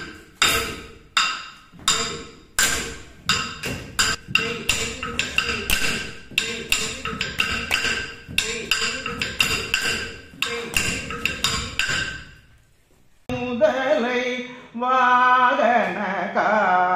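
A wooden stick beaten on a wooden block (the thattukazhi that keeps time for Bharatanatyam) in a steady dance rhythm, a couple of strikes a second. The strikes stop about twelve seconds in, and after a short pause a voice starts singing a dance song.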